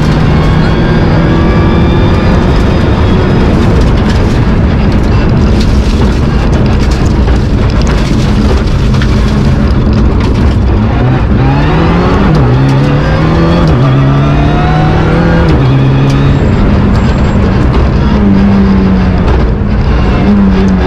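Rally car engine at high revs, heard from inside the cabin on a gravel stage, with a constant rush of tyre and road noise. About halfway in the pitch climbs and drops sharply three times in quick succession as the driver upshifts, then holds high again.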